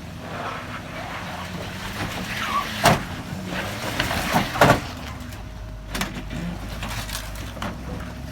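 Off-road vehicle engine running under load on a muddy trail climb. Several sharp knocks sound over it, the loudest about three and four and a half seconds in.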